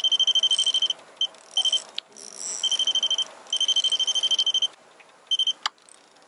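Fishing reel drag clicking in rapid, high-pitched bursts of varying length as a large hooked fish pulls line against it. There is one sharp knock near the end.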